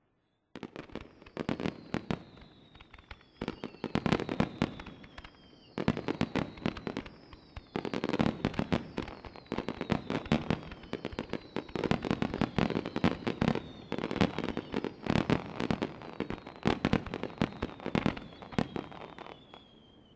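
Fireworks display: aerial shells bursting in rapid succession, a dense barrage of sharp bangs and crackles starting about half a second in and coming in loud clusters throughout.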